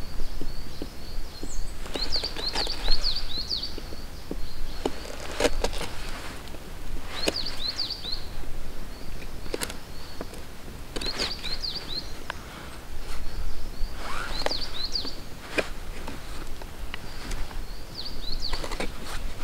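Knife blade shaving a thin stick into a feather stick, one stroke every second or two. A small songbird sings a short, quick trill of high chirps about every two to three seconds.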